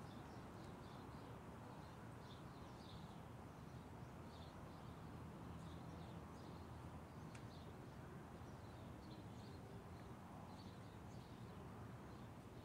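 Near silence: faint, repeated chirps of small birds over a low, steady background noise.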